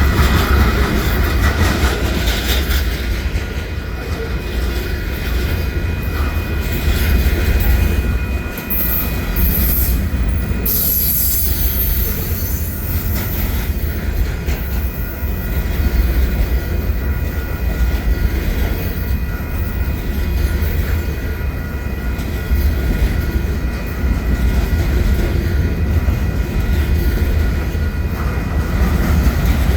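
Railcars of a freight train loaded with wind turbine tower sections rolling past, a heavy steady rumble of wheels on rail with a thin, steady squeal from the wheels over it.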